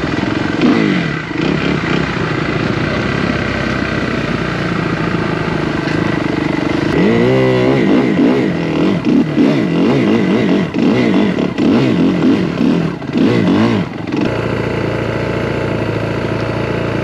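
Dirt bike engine running, then revved up and down over and over in quick swells for several seconds as the rider works the throttle on a slippery uphill climb, settling to a steadier run near the end.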